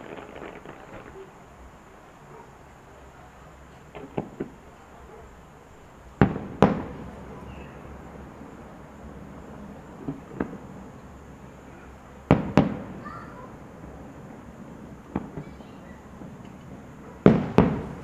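Fireworks display: aerial shells bursting with sharp bangs, six times, most of them doubled, every two to five seconds, each trailing off in echo. The loudest come just past a third of the way in and near the end.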